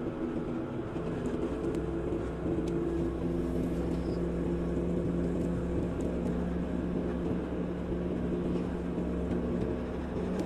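Car engine hum and tyre noise heard from inside a moving car, steady while cruising along the road.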